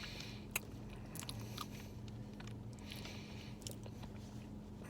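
Person chewing a mouthful of soft chocolate cookie, with a few small, sharp mouth clicks over a faint steady hum.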